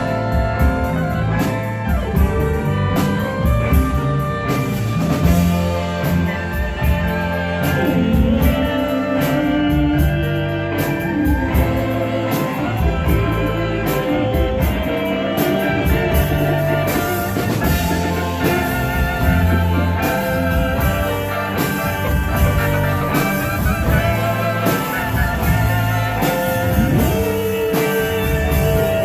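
Band playing a guitar-led rock song, with sustained guitar notes over bass and steady drum hits.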